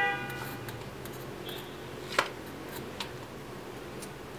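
A few light clicks and taps of a metal compression fitting being handled against a CPU water block, with one sharp click about two seconds in.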